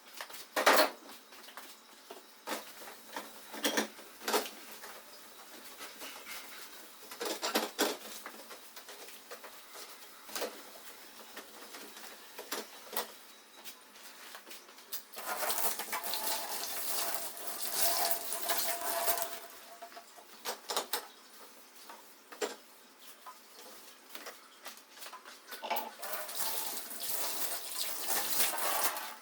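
Kitchen sink work: dishes and containers clinking and knocking, with water running from the tap twice for a few seconds.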